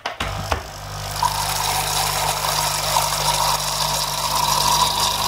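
Capsule coffee machine's electric pump buzzing steadily as it pushes hot water through the freshly unblocked capsule needle, with a hiss of water running and spilling. It starts just after a click at the very beginning.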